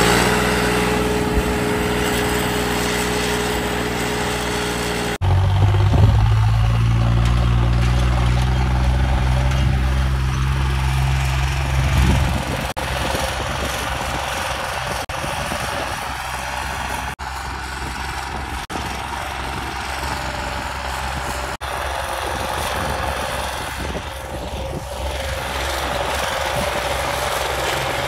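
Diesel farm tractor engines running steadily, working a harrow. The sound changes abruptly several times, and the loudest, deepest engine note comes from about six to twelve seconds in.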